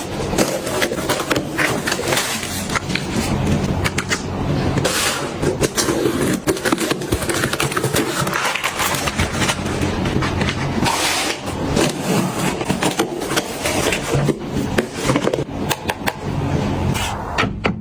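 Kitchen items being handled: a steady run of clicks, knocks and rubbing from containers, packaging and surfaces.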